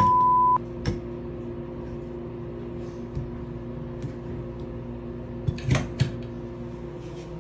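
A loud half-second beep of one steady pitch. Then a steady low hum, with a few clicks and knocks from a hand working the clear knob handle of a single-handle bathtub faucet and touching the metal spout.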